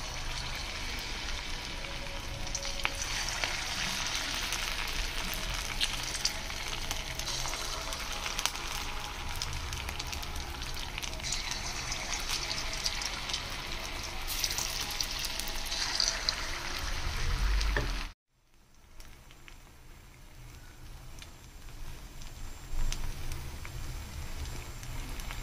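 Potato-and-rice batter pakoras frying in hot oil in an aluminium kadai, with a steady sizzle as spoonfuls of batter go in. The sizzle cuts off suddenly about eighteen seconds in, then comes back softer and grows again near the end.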